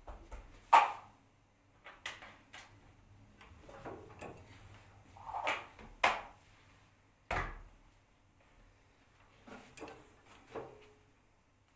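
LG direct-drive front-loading washing machine tumbling a load of clothes and bags: irregular thumps and swishes every second or two as the load drops in the turning drum, the loudest about a second in, over a faint low hum.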